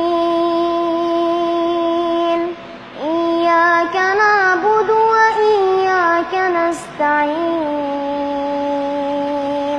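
A child chanting Quran verses in a melodious recitation. Long held notes alternate with ornamented runs that bend up and down in pitch, with a short breath pause about two and a half seconds in.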